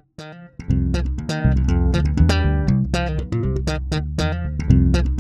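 Headless electric bass guitar being played: a busy line of plucked notes with sharp attacks, starting about half a second in.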